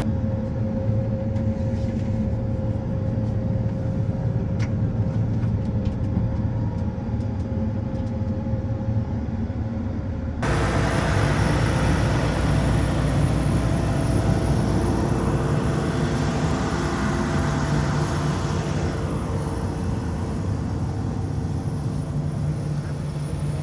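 A vehicle engine running steadily with a low hum. About ten seconds in, the sound changes abruptly to a louder, hissier run of engine and road noise.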